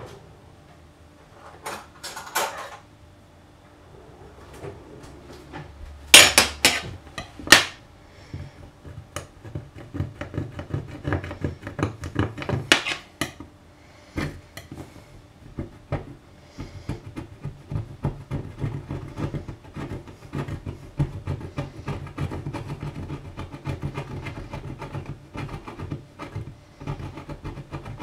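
A metal blade scraping melted plastic off a glass-ceramic hob, in quick short strokes. A few louder, sharper scrapes come in the first half.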